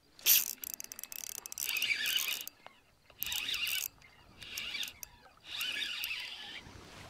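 Fishing reel being cranked in spurts, its gears clicking: a sharp click just after the start, then four or five bursts of a second or so with short pauses between.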